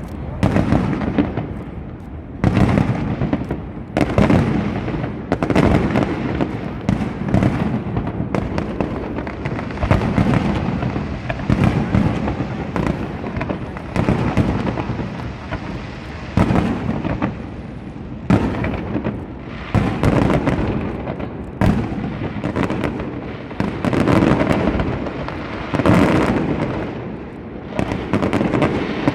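A fireworks display: aerial shells bursting in quick succession, a loud bang every second or two with rumbling echoes and crackle in between.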